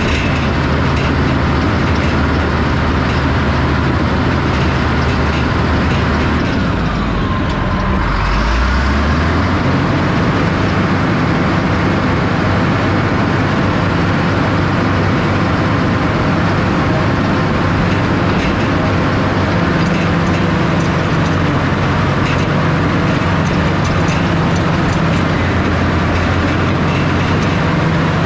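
Cat D6H Series II crawler dozer's six-cylinder diesel (Cat 3306) running steadily under load as the blade pushes a pile of dirt and rock. The engine note changes briefly about seven to nine seconds in, then settles again.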